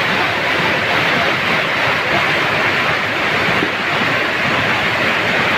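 Heavy rain falling: a loud, steady hiss.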